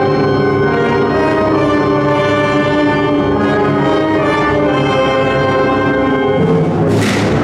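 Symphonic wind band playing a Spanish Holy Week processional march, with sustained brass chords and a crash near the end.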